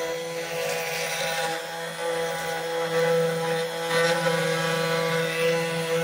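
Vevor S3018 Pro desktop CNC router running, its spindle giving a steady whine as the cutter mills a plexiglass sheet, with louder spells of cutting noise about a second in and again around four seconds.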